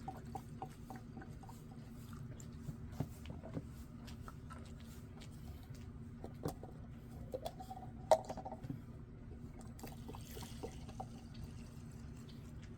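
Old gasoline-and-oil mix from a trimmer's fuel tank dribbling and dripping into plastic cups, with scattered small ticks and taps of handling and a sharper tap about eight seconds in, over a faint steady hum.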